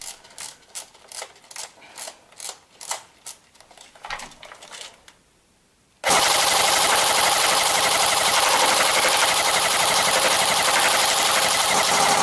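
Irregular clicking for about five seconds, typical of winding the wheel of a high-capacity airsoft magazine. Then, about six seconds in, an airsoft AK-105 rifle fires one continuous full-auto burst of about six seconds, BBs tearing through a paper target, cutting off suddenly at the end.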